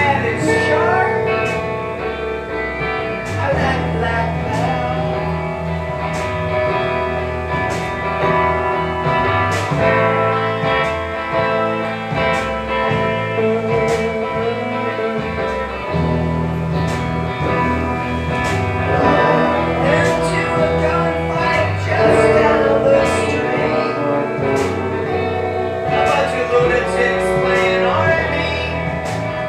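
Instrumental music led by guitar, with a moving bass line.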